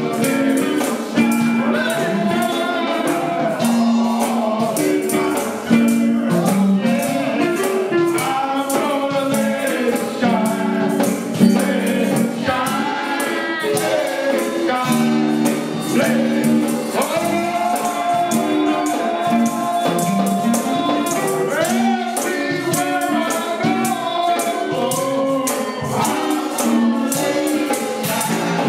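Gospel music: voices singing together over held chords, with a tambourine shaken in a fast, steady beat.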